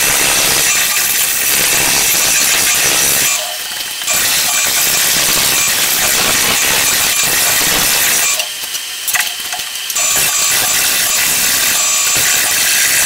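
Half-inch bowl gouge cutting into a spinning, out-of-round blank of wood and acrylic resin on a lathe: a loud, continuous scraping hiss as the blank is roughed round. The cut breaks off briefly twice, about three and a half seconds in and again around eight and a half seconds in, leaving the lathe running more quietly.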